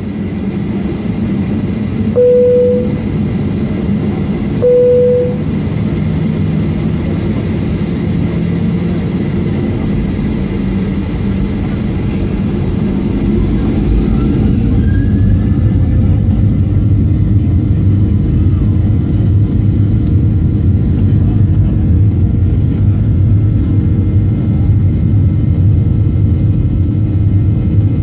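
Airliner cabin noise during the takeoff roll: the engines spool up with a rising whine, and from about halfway the low rumble grows louder and stays steady as the plane speeds down the runway. Two short, loud single tones sound a few seconds in, about two and a half seconds apart.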